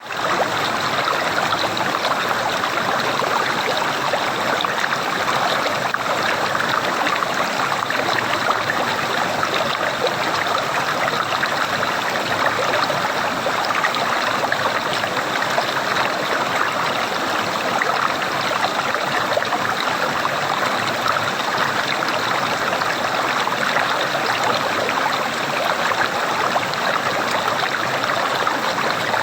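Flowing water gurgling steadily in a continuous babble, fading in at the very start.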